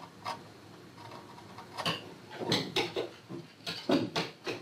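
Wood-carving chisel pushed by hand through wood, paring fine detail on a carved figure's face in short scraping cuts. One cut comes shortly in, then a faster run of about seven cuts from about two seconds in.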